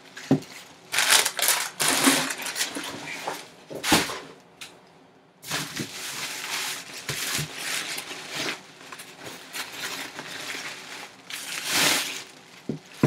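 Rustling of a black nylon drawstring helmet bag being worked and pulled off a full-size football helmet by hand, in repeated swells, with a few short knocks as the helmet is handled.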